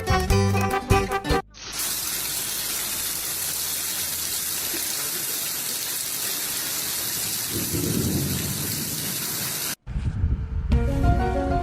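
Brief music, then a steady, even rushing hiss like heavy rain or running water lasting about eight seconds, which cuts off suddenly; music comes back near the end.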